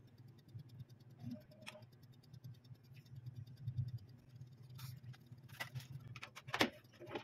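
Soft taps and clicks of a silicone basting brush and a small bowl as oil is brushed onto sliced eggplant on a baking tray, with a few sharper knocks in the second half. A faint, fast, even ticking runs underneath.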